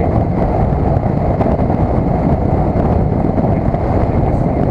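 Steady, loud wind buffeting on a helmet-mounted action camera's built-in mic while riding a 2012 KTM 990 SMT at road speed, with the motorcycle's running noise blended underneath.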